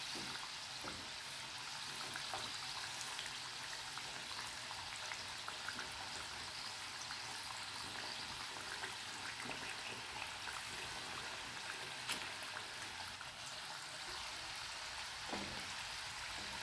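Samosa rolls deep-frying in hot oil on medium flame: a steady, fairly quiet sizzle with small scattered crackles. One sharper click comes about twelve seconds in.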